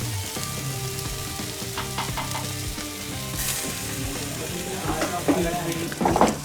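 Chicken skewers and sausage sizzling on a barbecue grill, with a few light clicks along the way.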